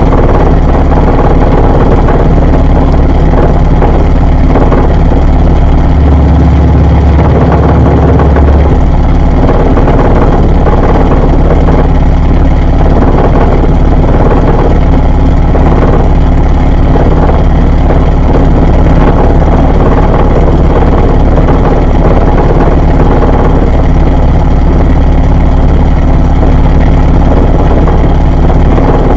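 Washing machine running, heard from inside the drum: a loud, steady motor hum with a churning noise over it, and the deepest part of the hum swells briefly about six seconds in.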